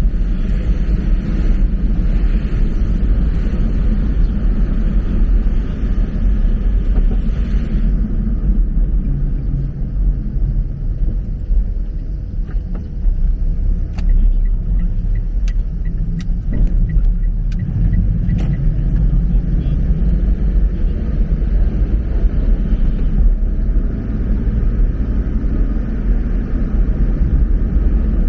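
Steady low rumble of a vehicle on the move, road and engine noise, with a few faint clicks in the middle.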